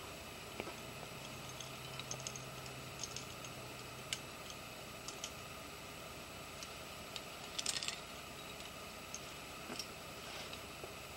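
Scattered light clicks and clinks of climbing hardware, carabiners and quickdraws on a climber's harness rack, with a quick run of clinks a little past two-thirds through, over a steady hiss.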